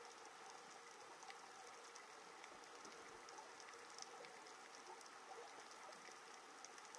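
Faint, steady underwater crackle of many tiny irregular clicks from snapping shrimp on the reef.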